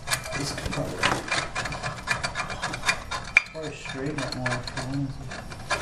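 Metal hand tools clinking and scraping on a golf cart's driven clutch: locking pliers and a wrench gripping and working at the clutch, with many sharp clicks, the loudest a little past three seconds in.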